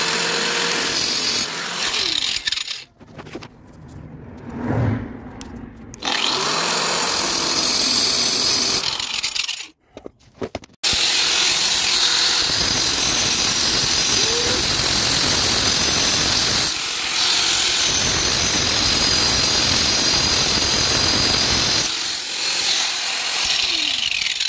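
Angle grinder cutting through a rounded-off steel drop link nut on a car's suspension. It cuts in stops and starts for about ten seconds, then after a brief pause makes one long steady cut.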